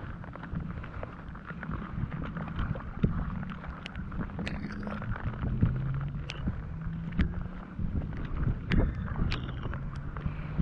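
Wind rumbling on the microphone, under a faint low hum that steps up and down in pitch. Sharp clicks come every second or so as a dehooking tool works a hook out of a sheepshead's mouth in a rubber landing net.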